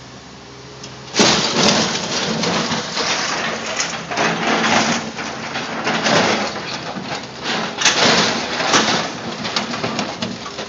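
Excavator bucket crushing a car body: loud, continuous crunching and grinding of sheet metal with repeated crashes, starting suddenly about a second in. Before that, only the excavator's engine hum is heard.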